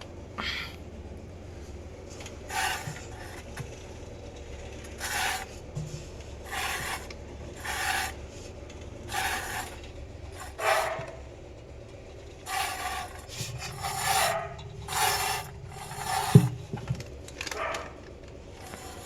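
IFB front-load washing machine's drum rubbing as it turns: a rasping, grinding scrape that comes back about every second or so over a low hum, with one sharp click about 16 seconds in. This is the 'khar khar' rubbing fault being checked, which the technician suspects may mean worn drum bearings.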